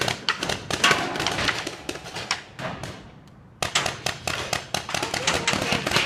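Paintball markers firing in rapid, irregular pops, with a short lull about three seconds in before the shooting picks up again.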